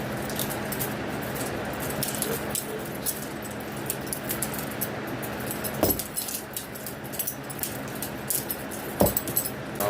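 Butterfly knife being flipped: its metal handles and blade click and clatter in quick, irregular runs, with two louder knocks, near the middle and near the end.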